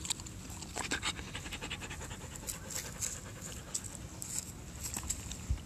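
A dog panting close to the microphone, in quick, uneven runs of breaths.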